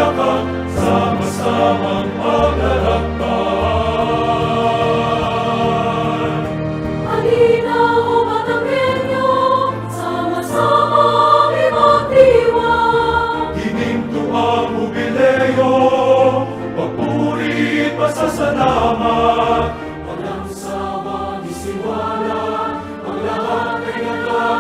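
Choir singing a hymn with instrumental accompaniment, sung lines over held low notes.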